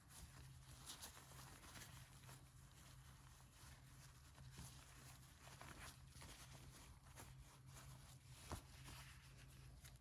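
Near silence: a faint steady low hum with scattered soft clicks, one a little sharper about eight and a half seconds in.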